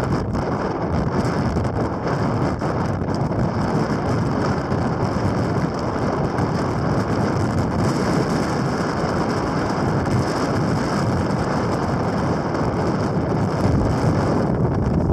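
Strong wind blowing across the microphone: a loud, steady rushing noise with a deep rumble.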